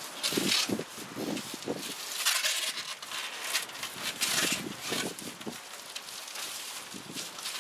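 Irregular rustling and crinkling, in several short bursts with light knocks, as foil bubble insulation (Thermowrap) is handled and pressed into place under a van's metal roof.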